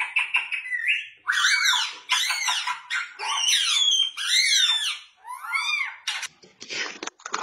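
Indian ringneck parakeet calling: a quick run of about half a dozen loud, high calls, each rising then falling in pitch, from about a second in until near the end.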